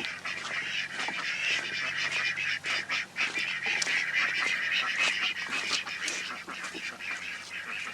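A flock of farm birds calling all at once in a steady, dense chatter.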